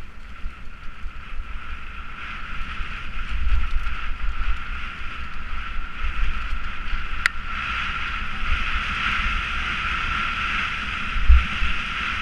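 Mountain bike coasting fast down a rough dirt track: wind buffeting the microphone with low thumps from the bumps, over a steady high whir that grows stronger about eight seconds in, the noise the rider asks about. A single sharp click about seven seconds in.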